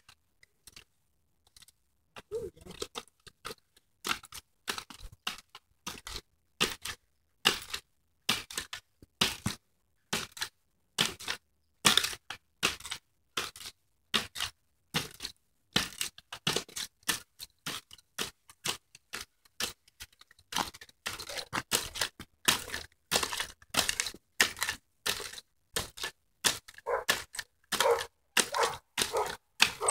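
Spring-loaded jumping stilts landing again and again on a gravelly driveway strewn with dry leaves: sharp clacks and crunches of the stilt feet and metal frames, a few a second, starting about two seconds in and coming thicker in the last third.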